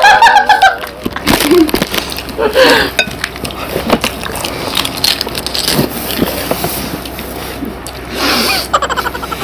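Crisp fuchka (pani puri) shells being cracked open with the fingers and crunched, with scattered clicks and crackles. A woman's voice and laughter are loudest right at the start, and short bits of voice come a few more times.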